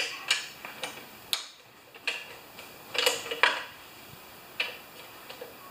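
Half-inch socket ratchet clicking in short, irregular strokes as it tightens the cylinder head bolts beside the muffler on a Briggs & Stratton Quantum lawnmower engine.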